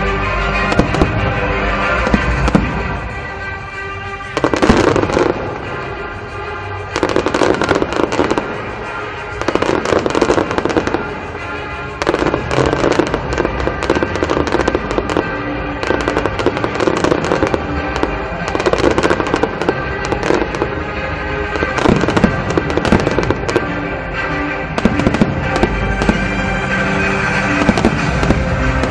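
Aerial fireworks show: volleys of shells bursting and crackling in dense clusters, over music playing with sustained tones.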